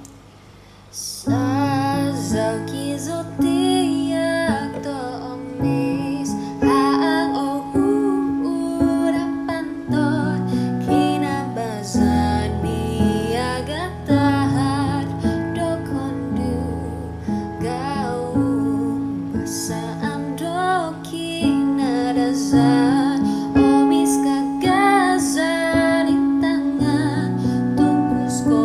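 A woman singing a melody with vibrato over an instrumental backing of held bass notes, starting about a second in.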